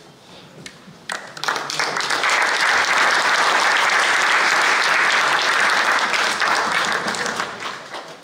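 Audience applauding, starting about a second in, holding steady, then dying away near the end.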